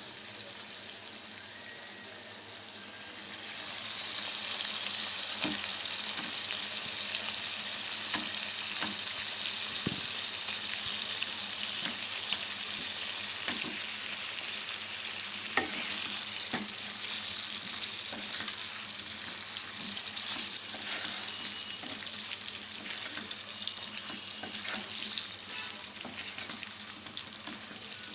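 Whole peeled potatoes sizzling in a pan of spiced masala gravy; the sizzle grows much louder about four seconds in and stays strong, with scattered sharp clicks and scrapes from a spatula stirring them in the pan.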